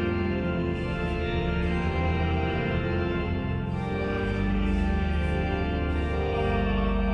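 Church organ playing slow, sustained chords that change every second or two, sounding in a reverberant cathedral.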